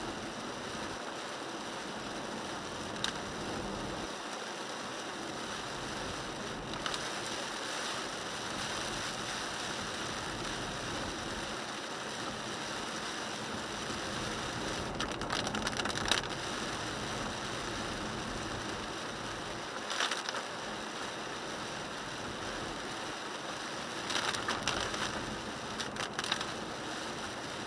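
Inside the cabin of a 1998 Toyota 4Runner driving on wet road in the rain: a steady hiss of tyres and rain, broken by a few scattered short clicks and rattles.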